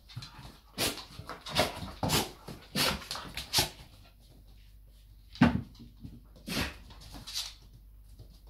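Dogs giving short, excited cries. A quick run of them comes in the first few seconds, then three more spaced a second or so apart.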